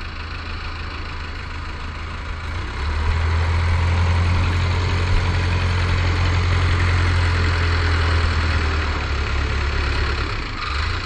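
The small ferry boat's open inboard car-type engine running with a steady low hum. It gets louder about three seconds in and eases a little near the end, with water churning in the propeller wash.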